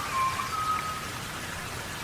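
Steady rainforest rain falling. During the first second a few clear whistled notes sound over it, each held at one pitch.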